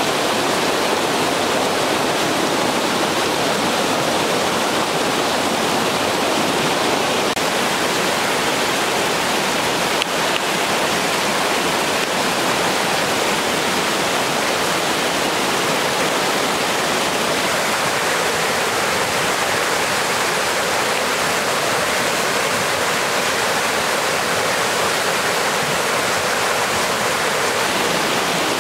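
Rushing water of a small mountain trout brook running high after heavy rain: a steady, loud rush of fast riffles and a small cascade spilling over a logjam.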